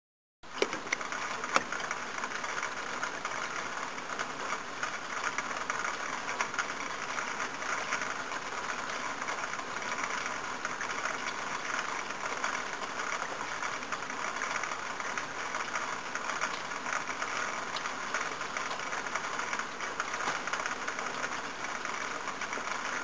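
Icy rain falling: a steady, dense patter of tiny ticks that starts suddenly about half a second in.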